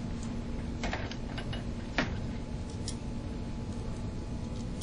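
Light, scattered clicks of metal pedicle-screw instruments being fitted together, the sharpest about two seconds in, over a steady background hum.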